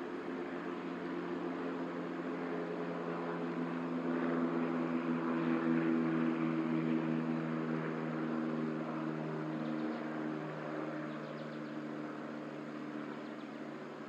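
A passing engine: a steady hum with several pitched tones over a rushing noise, swelling to its loudest about six seconds in and then slowly fading.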